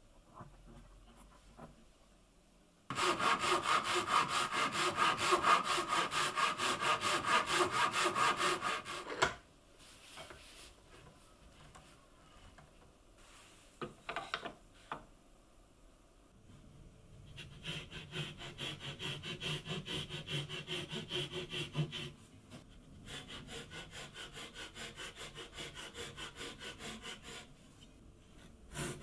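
Fine-toothed hand saw cutting wood with quick, even back-and-forth strokes. There is a loud spell of sawing about three seconds in, then a few light knocks, then two quieter spells of sawing later on.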